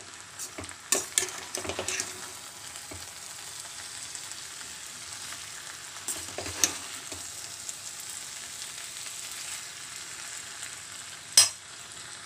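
Mixed vegetables sizzling steadily in a steel kadai, stirred with a slotted steel spatula that clinks and scrapes against the pan now and then; the loudest clink comes about a second before the end.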